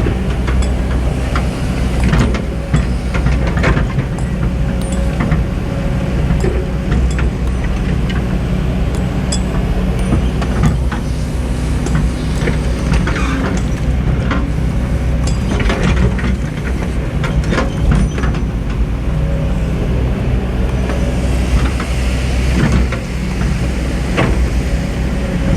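Hydraulic excavator's diesel engine running steadily under load, with scattered knocks and clanks from the machinery at work.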